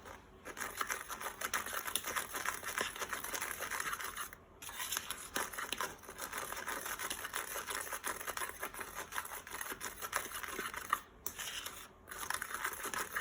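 A fork whisking dry instant pudding mix and cornstarch in a mixing bowl: a continuous scratchy scraping of fast fine strokes, with brief pauses about four seconds in and twice near the end.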